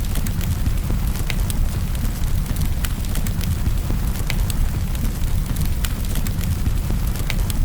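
Wood fire crackling in a fireplace, with frequent sharp pops over a steady low rumble and an even rain-like hiss.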